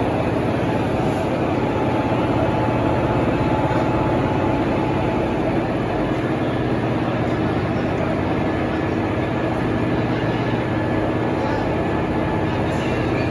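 Indian Railways electric locomotive standing with its equipment running: a steady loud drone with a few constant tones in it.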